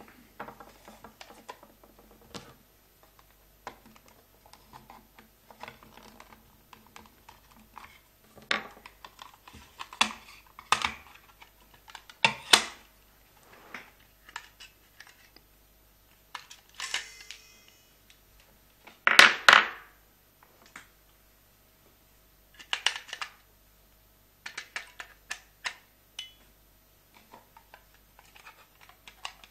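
White plastic case of a Computherm wireless room thermostat being handled and prised open by hand: scattered plastic clicks, snaps and scrapes. The loudest scraping comes about two-thirds of the way through.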